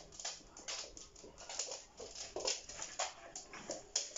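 Two dogs playing on a laminate floor: claws clicking and scrabbling in quick, irregular light ticks, with a few faint dog noises among them.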